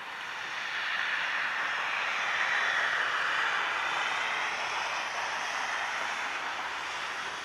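Jet aircraft engine noise from a plane moving at the airport, a steady rushing sound with no clear pitch. It swells over the first couple of seconds, holds, and begins to fade near the end.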